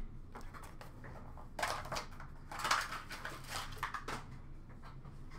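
Trading cards and their packaging being handled on a counter: a few short bouts of crinkling and rustling with light clicks, over a low steady hum.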